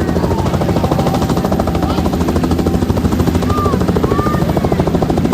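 Helicopter rotor beating in a rapid, even rhythm during takeoff, loud and steady.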